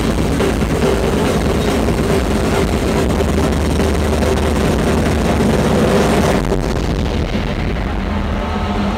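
Stage pyrotechnic spark fountains (gerbs) hissing over a loud arena roar. The hiss cuts off about six and a half seconds in, leaving a duller roar.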